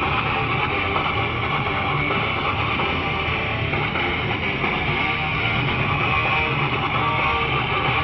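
Heavy metal music with distorted electric guitars, bass and drums, played without a break.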